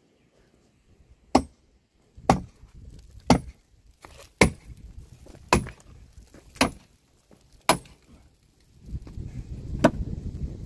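Axe chopping into dry dead tree roots: seven sharp blows about one a second, each with a light metallic ring. A rougher rustling noise rises near the end, with one more blow.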